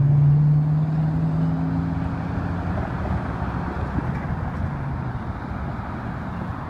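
Cars driving over the railroad crossing close by: engine hum and tyre noise, loudest at the start and fading over the first few seconds as a car passes, then a steady traffic rumble.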